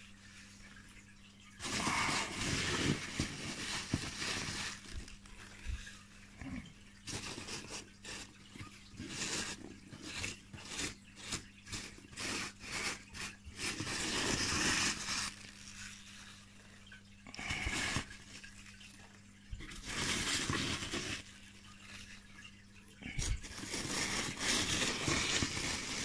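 Polystyrene packing peanuts rustling as a hand rummages through them, in bursts with short pauses, with a run of quick clicks midway as the pieces knock together.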